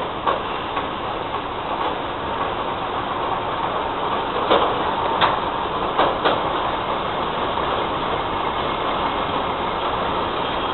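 Freight train of tank wagons rolling slowly through a marshalling yard: a steady rumble of wheels on rail, with a few sharp clacks of wheels over rail joints around the middle.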